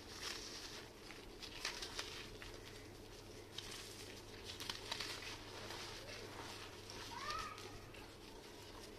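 Clumps of red sand crumbling and crackling as they break up in water, in several hissy, crackly bursts with small sharp clicks. A bird chirps briefly near the end.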